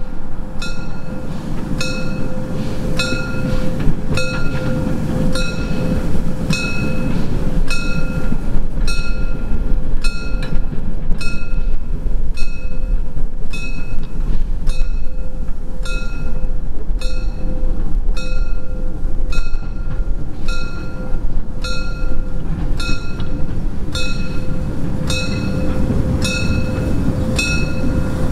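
Narrow-gauge steam tank locomotive 99 2323 (DR class 99.32) running slowly, its warning bell striking steadily about one and a half times a second over the rumble of its wheels and running gear.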